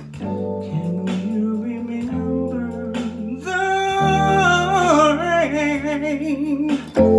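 A man sings a long, held vocal line that wavers and slides downward in pitch, over a backing track with guitar. The voice enters strongly about halfway through, after a stretch of mostly accompaniment, and ends just before a loud accent from the band near the end.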